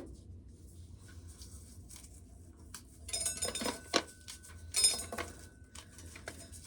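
Dry corn being shelled by hand: light rattling and clicking of kernels coming off the cob. It starts about three seconds in, with two louder bursts of clatter, under a faint steady hum.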